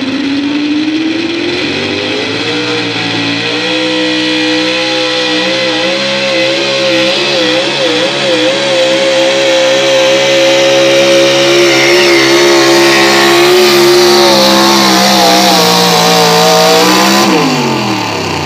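A pulling pickup truck's engine at full throttle dragging a weight-transfer sled. The revs climb over the first few seconds, hold high with some wavering, then fall away sharply near the end as the driver lets off.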